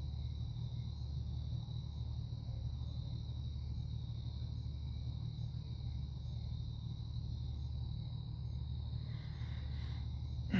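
Steady low hum with a faint, thin high-pitched tone above it: the recording's background noise, with no distinct events.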